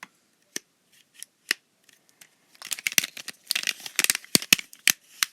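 Plastic twist-snake fidget toy clicking as its segments are twisted, their ball joints snapping in and out of the sockets. A few single clicks, then a quick run of louder clicks from about two and a half seconds in.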